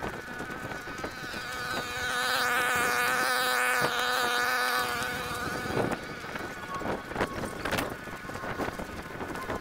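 A small engine drones at a steady high pitch, swelling for a few seconds mid-way and then fading. Around it come brief rustles and cracks of dry sticks being gathered by hand.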